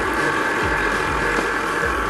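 Kenwood stand mixer motor running steadily at kneading speed, its dough hook working a soft dough in the steel bowl, with background music.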